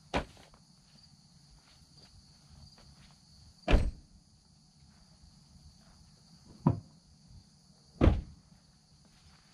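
Four loud, sharp knocks or thuds, irregularly spaced, over faint steady background hiss.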